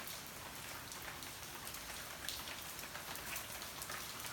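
Steady rain falling, an even hiss dotted with many separate drop hits.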